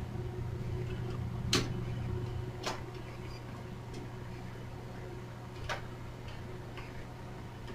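Three sharp clicks of parts and tools being handled during TV reassembly, the first two about a second apart and the third a few seconds later, over a steady low hum.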